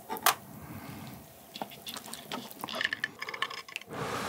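Metal tong-chopsticks clinking against the pan and stirring and lifting a clump of wet ramen noodles out of the broth, with small wet clicks and dripping; a sharp clink comes about a third of a second in. Near the end a steady breath of air starts as the noodles are blown on to cool them.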